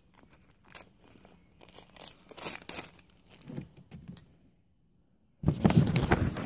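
Handling noise on a phone's microphone: scattered rustles and light knocks as the phone is picked up and moved, a brief near-quiet moment, then about a second of loud rubbing and scraping against the microphone near the end.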